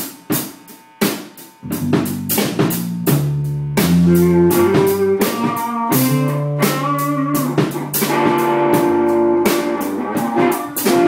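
A small band playing together: a drum kit keeps a steady beat of sharp strokes over a low bass line and guitar chords.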